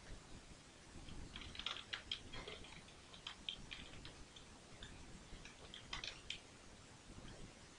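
Computer keyboard being typed on: irregular runs of quick key clicks starting about a second in, thinning out in the middle, with a last burst near six seconds.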